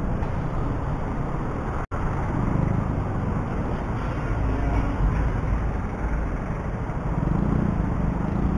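Motorcycle ride in traffic: steady engine and road noise from the rider's own bike, with a split-second dropout about two seconds in.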